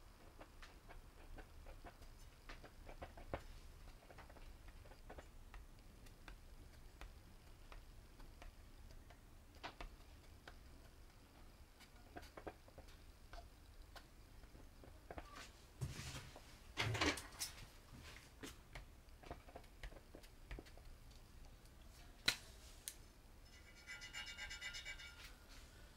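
Faint scrapes and soft clicks from a large woofer being handled and its cone pressed by hand, with a cluster of louder knocks about two-thirds in, a single sharp click a few seconds later and a short buzzing rasp near the end.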